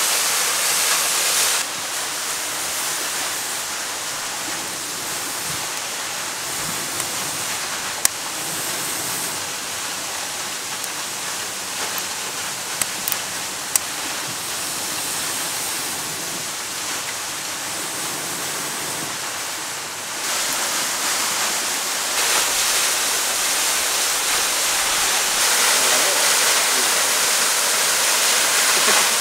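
Steady rushing of a waterfall and its stream, quieter from about a second and a half in and louder again after about twenty seconds. A few sharp clicks come around the middle.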